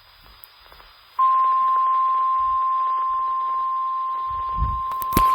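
Weather-radio warning alarm tone: one steady, loud single tone near 1 kHz that comes on suddenly about a second in and holds without a break, announcing a severe thunderstorm warning. Near the end a low thump and a sharp click sound over it.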